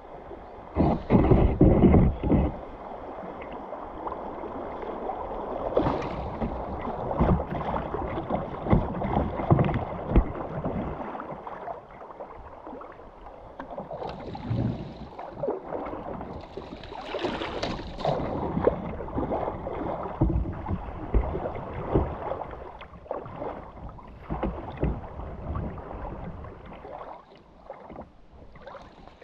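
Kayak paddle strokes splashing and choppy river water sloshing against the hull, heard close up from the kayak's bow, in an uneven run of splashes that is loudest about a second in.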